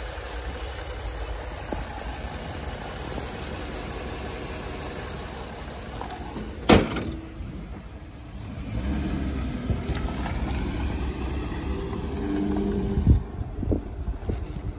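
Ford F-150 pickup's engine idling steadily, then running a little louder from just past halfway as the truck pulls away. A single sharp click about halfway through is the loudest sound.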